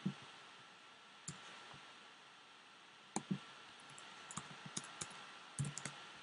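Computer mouse and keyboard clicks: about a dozen short, sharp clicks at irregular intervals, with a quick cluster near the end, as text in a form field is edited.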